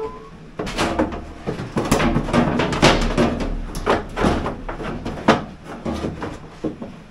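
Irregular knocks, clunks and rattles of hands and tools working a control-panel box onto a genset mount, several sharp hits standing out.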